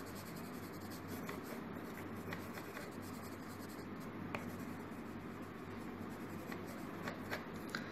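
Graphite pencil shading back and forth on paper: a soft, steady scratching with a few faint clicks, over a faint low hum.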